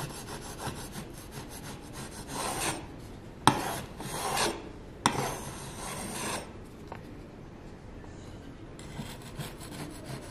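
Metal blade of a 5-in-1 painter's tool scraping excess wood filler off a wooden trim board, in repeated gentle strokes. A couple of sharp clicks come in the middle, and the scraping eases off for about two seconds before starting again.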